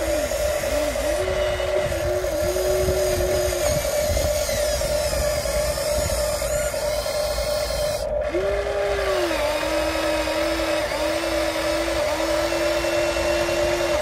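Small electric motors of a Huina 1593 1/14-scale RC excavator whining as it digs soil. They run in two spells, one over the first few seconds and another from about eight seconds in, each starting a little higher and settling to a steady pitch, over a constant higher hum.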